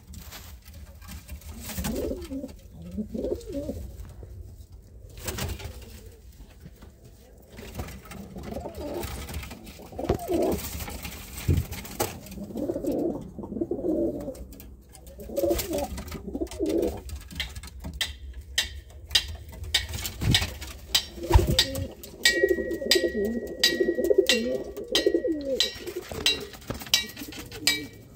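Domestic pigeons cooing, with repeated low, warbling coos. In the last ten seconds sharp clicks or taps come in among the coos.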